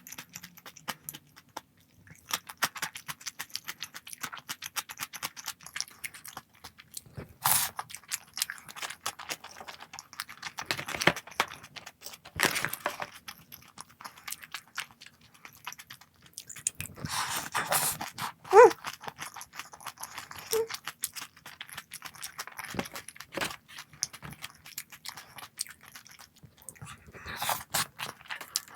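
Close-miked eating of mala-rosé tteokbokki: irregular chewing, biting and wet mouth clicks with a few louder slurps or crunches, and a brief pitched squeak about two-thirds of the way through.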